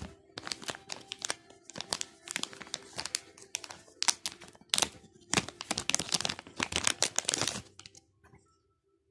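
Plastic packaging pouch being handled and peeled open by hand: a dense run of crinkling, crackling rustles that stops about eight seconds in.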